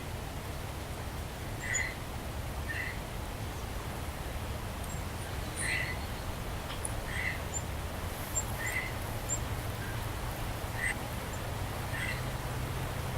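Birds calling outdoors: about seven short calls at irregular intervals of one to two seconds, with faint high chirps and a steady low rumble underneath.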